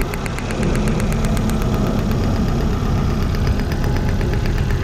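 Toyota 7A-FE 1.8-litre four-cylinder engine idling with a misfire on cylinder 1, with a fast, regular ticking over the rumble. The misfire is traced to a spark plug wire arcing through its insulation.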